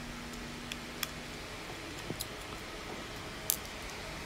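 A few light, scattered clicks from small hand-tool work on a DJI Mavic Pro drone's body, the sharpest about three and a half seconds in, over a steady low hum.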